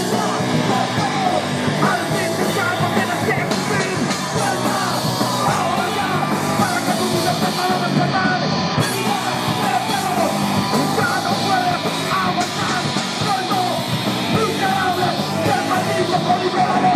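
Punk band playing live through amplifiers: electric guitars and drums with a shouted lead vocal, loud and dense.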